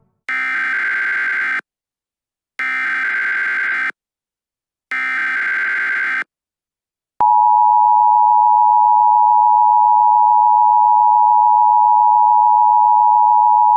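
Emergency Alert System header: three bursts of warbling SAME data tones, each just over a second long with about a second between them. About seven seconds in, the loud, steady two-tone EAS attention signal (853 and 960 Hz) starts and holds.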